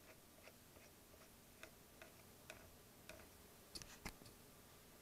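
Near silence: room tone with faint, light ticks about twice a second, a few slightly louder ones around four seconds in.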